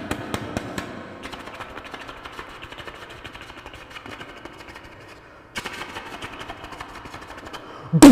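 A man mimicking machine-gun fire with his mouth: a fast, even run of clicks that stops briefly a little past halfway and then starts again. A sudden loud burst comes at the very end.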